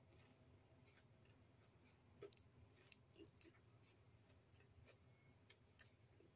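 Near silence with a few faint, scattered clicks: the small sounds of chewing and of fingers picking apart crisp fried dried fish.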